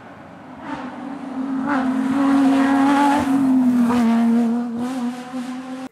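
Rally car engine at high revs, approaching and passing close, its pitch climbing and then dropping slightly as it goes by, with a few sharp cracks along the way. The sound cuts off suddenly at the end.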